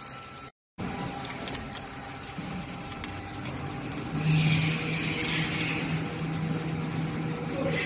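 A steady low machine hum, with a louder hiss over it for a couple of seconds from about four seconds in, and a few light metal clicks near the start as the scooter's steering-head bearing and lock nut are fitted.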